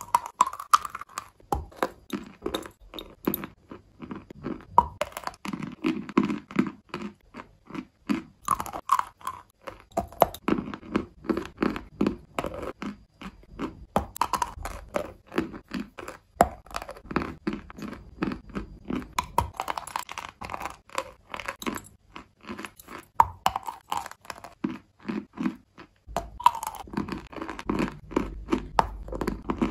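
A chunk of chalk being bitten and chewed: crisp crunches as pieces snap off, with gritty chewing between bites, over and over.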